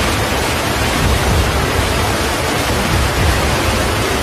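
Landslide: rock and earth pouring down a hillside, a steady rushing roar over a deep rumble.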